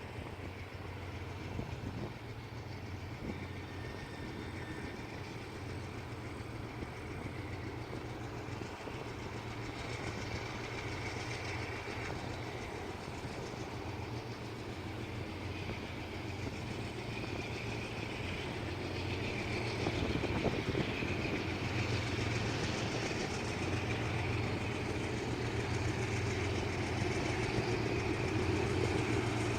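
GE C36-7i diesel-electric locomotive's engine running with a steady low drone, growing gradually louder, with a hiss in the upper range that strengthens in the second half.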